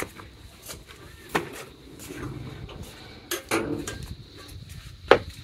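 Dishes and cutlery clinking and knocking: a few sharp clatters a second or two apart, the loudest near the end.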